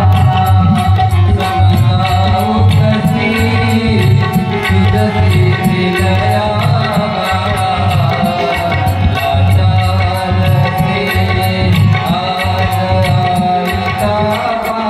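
Marathi devotional singing accompanied by tabla, the drum keeping a steady rhythm under the sustained melody.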